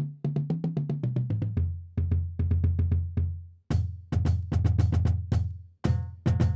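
Music: a drum kit plays a fast, even beat over a bass line that steps down for the first second and a half and then holds low notes. A higher chord comes in near the end.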